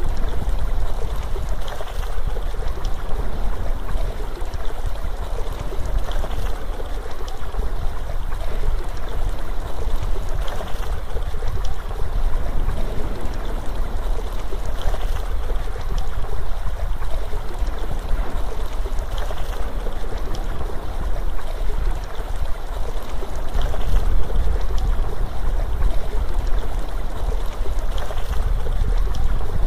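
Steady rush of waterfall water, with a deep rumble underneath.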